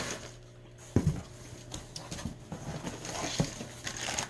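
Rummaging in a box of kitchen items: scattered rustles and light clicks, with one sharp knock about a second in as something is set down or bumped.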